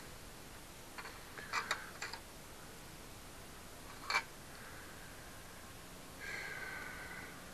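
Faint, scattered sharp clicks of small metal parts being handled on a worn bicycle pedal whose ball bearings are coming loose. A short cluster of clicks comes about a second and a half in, one louder click a little after four seconds, and a brief faint tone near the end.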